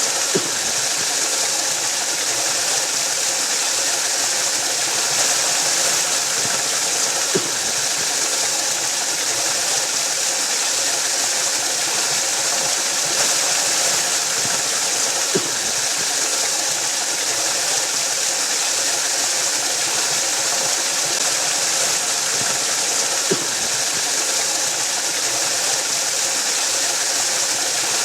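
Waterfall running with a steady, even rush of water. A brief faint click recurs about every eight seconds.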